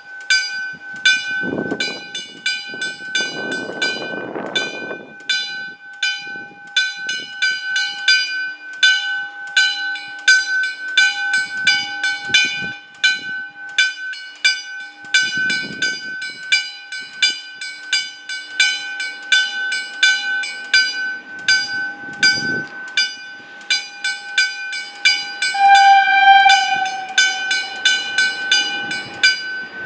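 Level-crossing warning bell ringing in rapid, evenly repeated strokes, the crossing's signal that a train is approaching. Near the end a train horn sounds briefly over it.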